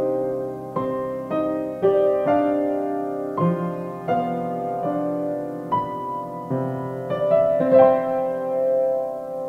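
Slow piano music: a series of struck chords, each ringing on and fading, played at an uneven pace of about one every half second to a second, with a longer held chord near the end.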